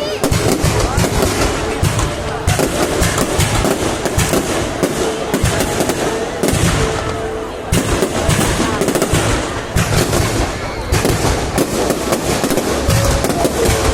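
Fireworks display: a rapid, unbroken run of bangs and crackle from shells bursting overhead.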